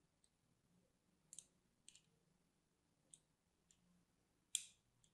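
A thin blade scoring crisscross lines into the surface of a bar of soap: short, crisp scraping strokes, about six of them, the loudest near the end.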